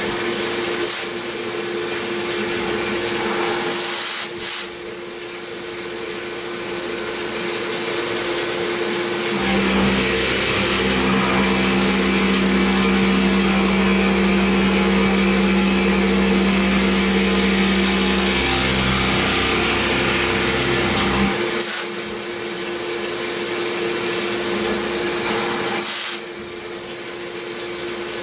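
CNC milling machine's long end mill side-roughing a deep cut in a metal block at about 4,000 RPM under flood coolant: a steady spindle whine over the hiss of spraying coolant and flying chips. For about twelve seconds in the middle the cut gets louder and deeper in tone, and the sound shifts abruptly a few times as the tool moves between passes.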